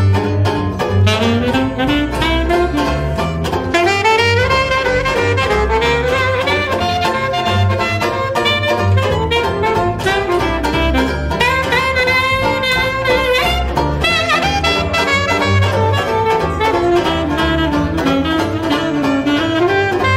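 Jazz saxophone playing a solo melody with slides and runs, over a strummed banjo and a double bass.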